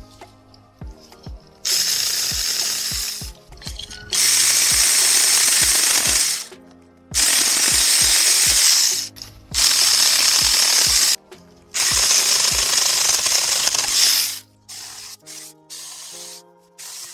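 Saker mini cordless electric chainsaw running and cutting through small branches in five separate bursts of about one and a half to two seconds each, with a high whine, over background music with a steady beat.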